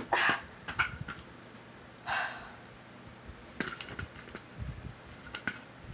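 Handling noise: scattered light clicks and knocks, with a short hiss about two seconds in and a soft thump near the end.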